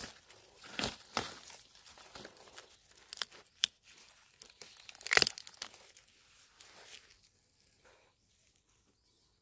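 Dry vegetation crackling, snapping and tearing in irregular bursts, with the loudest snap about five seconds in and the sounds dying away after about seven seconds.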